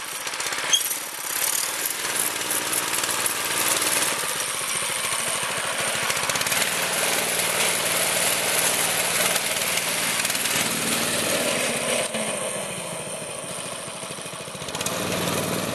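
Home-built go-kart's small single-cylinder gas engine running under throttle, a fast pulsing putter as the kart drives off. It grows quieter for a couple of seconds about three quarters of the way through as the kart pulls away.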